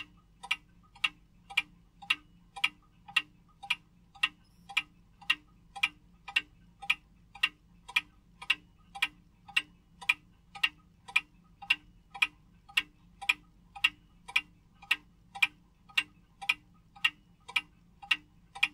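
Small Comitti wall regulator clock ticking steadily, about two ticks a second, with ticks alternating stronger and weaker in a regular tick-tock.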